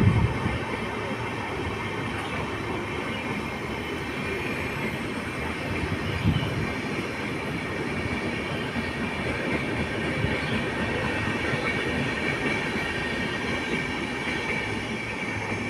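Train running past, a steady rumble of wheels on rails with a faint high squeal from the wheels. A brief low thump about six seconds in.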